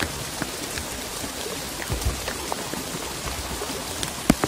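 Steady rain falling, with many scattered drop taps and one sharp, louder tap near the end.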